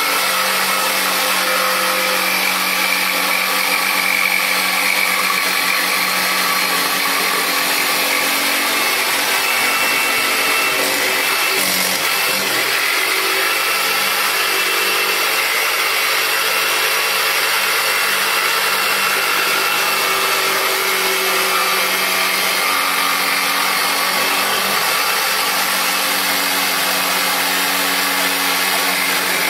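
Black+Decker corded jigsaw running without a break, its small curve-cutting blade sawing through plywood along a curved line. The motor note dips and wavers briefly about twelve seconds in as the cut is steered round the curve.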